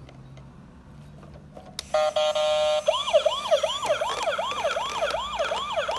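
Toy fire truck's electronic siren: a button click, three short beeps, then a fast rising-and-falling siren tone, about two to three sweeps a second.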